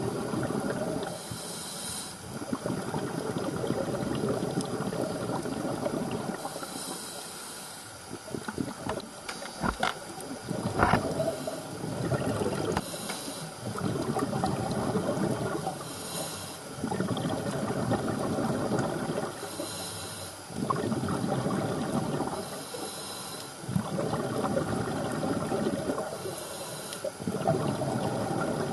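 A scuba diver breathing through a regulator underwater: a short hissing inhale, then a longer bubbling rush of exhaled air, repeating every three to four seconds. A couple of sharp clicks come about ten seconds in.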